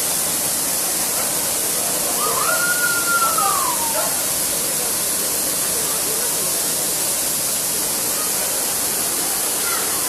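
Waterfall plunging down a rock face into a shallow pool: a steady, even rush of falling water. About two seconds in, a brief high-pitched call rises over it, holds, then falls away.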